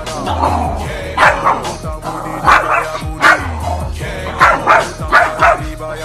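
Small dog barking repeatedly, a sharp bark about every second, over background music.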